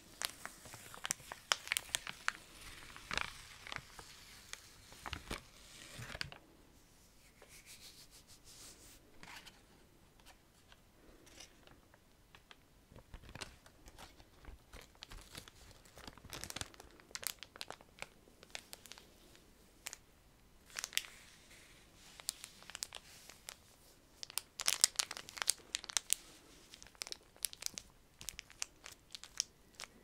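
Sticky paper sheet being peeled off and pressed onto the skin of a neck, crackling and rustling in uneven bursts. The crackling is busiest in the first few seconds and again towards the end.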